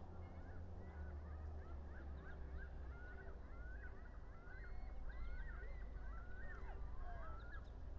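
Faint calls from a flock of birds: many short, overlapping calls keep coming over a steady low rumble.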